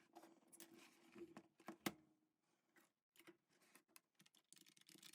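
Near silence with faint, scattered clicks and rustles of small parts and paper being handled, one slightly sharper click about two seconds in.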